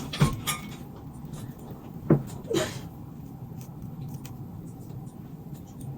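Handling noise: two sharp knocks about two seconds apart, a brief rustle, and a steady low hum underneath.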